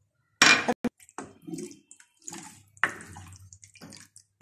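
Milk and vermicelli sloshing in a metal pan as they are stirred with a wooden spoon, with a loud knock and a sharp click about half a second in.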